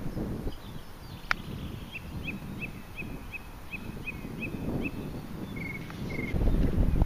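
A single sharp click of a golf iron striking the ball on a chip shot, about a second in. After it a bird repeats a short high note about three times a second, ending in two brief trills. Wind rumbles on the microphone underneath, heavier near the end.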